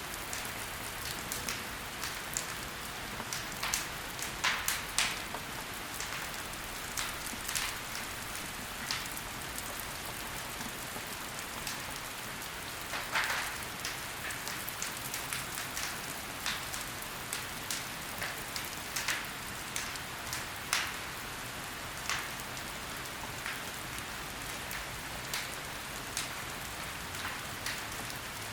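Logs burning in a fireplace, crackling: a steady hiss with irregular sharp pops and snaps from the wood, a few louder than the rest.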